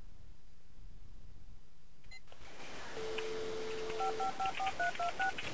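Telephone dial tone for about a second, then a quick run of about seven touch-tone keypad beeps as a number is dialled.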